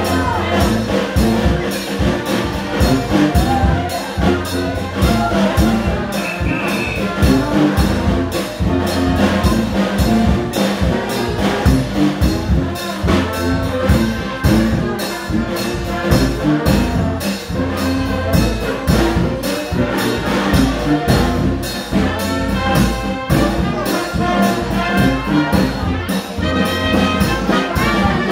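New Orleans-style second line brass band playing, with sousaphone and trumpet over a steady drum beat.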